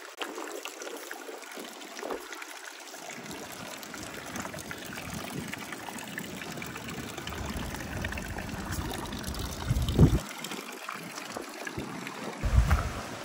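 Water from a fountain's thin jets trickling and splashing steadily into a stone basin. Two brief low buffets of wind hit the microphone, one about ten seconds in and a louder one near the end.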